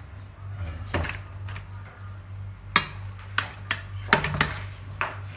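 Metal spoon clinking and scraping against a metal cooking pot as pieces of boiled stingray are scooped out, a run of sharp clinks, most of them in the second half. A low steady hum runs underneath.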